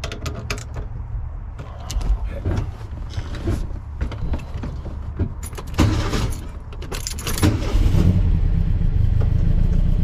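Metal clicks and clunks as a newly fitted Empi T-handle shifter in a 1968 VW Beetle is snugged down and worked by hand, with a denser clatter about six seconds in. A steady low rumble grows louder near the end.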